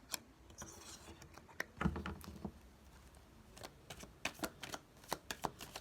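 Tarot cards being handled on a table: a brief rustle near the start, a soft thump about two seconds in, then a quick run of sharp clicks and taps in the second half.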